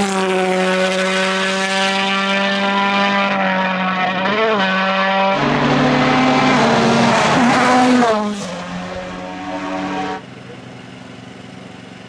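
Toyota Yaris WRC rally cars, 1.6-litre turbocharged four-cylinder engines, running flat out at high revs. The first car holds a steady note with a brief lift about four and a half seconds in. A second car follows with its pitch dipping and shifting as it lifts and changes gear. Its sound falls away near the end, leaving a quieter, steady engine-like tone for the last two seconds.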